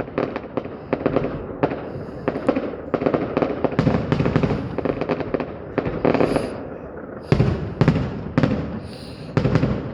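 Fireworks going off in quick succession: many sharp bangs and booms mixed with crackling. The loudest cluster of bangs comes about seven to eight seconds in.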